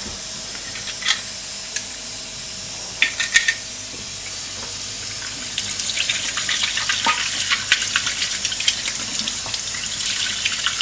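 A few light plastic clicks as a computer mouse housing is handled, then from about halfway kitchen tap water splashing as the housing is rubbed by hand under the stream.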